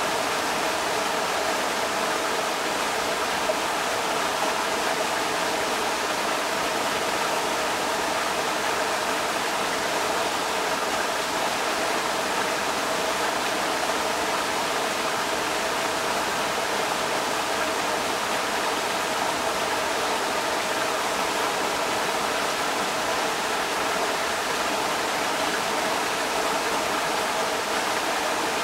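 Creek water rushing steadily over rocks, a constant even roar.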